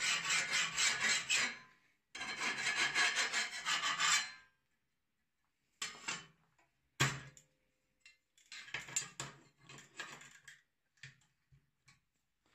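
Hand file rasping along the edge of a steel lawn mower blade to take off the burr left by grinding, in two runs of quick strokes over the first four seconds. Then a sharp metal knock about seven seconds in and scattered light clinks and rattles of metal being handled.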